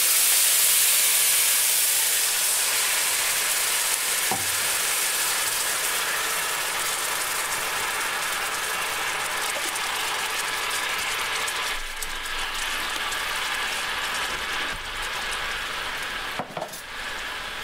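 Chicken broth boiling and sizzling hard in a hot cast iron skillet, deglazing the pan after searing meat. A loud, steady hiss that is strongest at first and slowly eases as the pan cools under the liquid.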